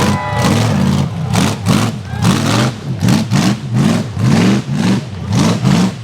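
A rock bouncer buggy's 454 V8 engine being revved hard and repeatedly, its pitch rising and dropping about twice a second as the throttle is hammered on and off.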